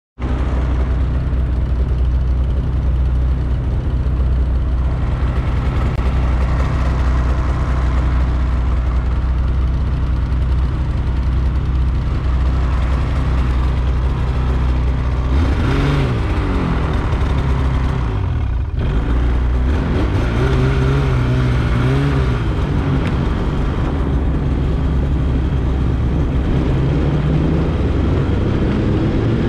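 Engine of a Polaris trail vehicle running while riding, with a steady drone. About halfway through the engine note rises and falls several times as it revs up and down, then settles and climbs slowly near the end.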